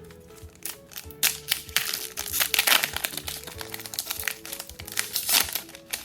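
Foil Pokémon booster pack wrapper crinkling loudly as it is handled and opened, over light background music.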